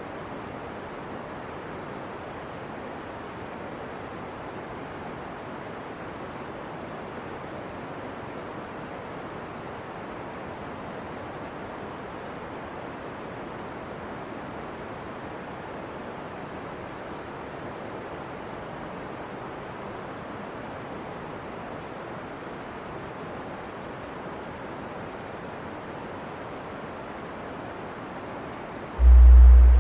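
Steady, even rushing noise like wind or steam, unchanging throughout, with a short, very loud deep boom about a second before the end.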